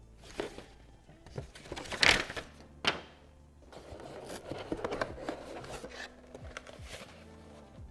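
Cardboard packaging being handled during an unboxing: a few sharp knocks and scrapes, the loudest about two seconds in, then a stretch of rustling and rubbing, under soft background music.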